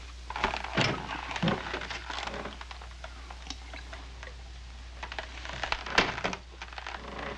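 Glass soda bottle handled on a wooden desk: small knocks and rustles as it is lifted and drunk from, then a sharp clink about six seconds in as it is set back down. A low steady hum runs underneath.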